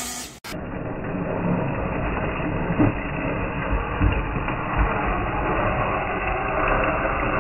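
Traxxas 4-Tec VXL RC car running flat out, its brushless electric motor whining and its tyres scrubbing on asphalt as it slides through a corner, with a few low thumps. The sound breaks off briefly just under half a second in.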